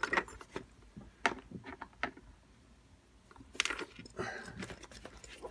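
Small metal clicks and rattles of lock-picking tools being handled while a different pick is picked out, with a denser clatter a bit past halfway.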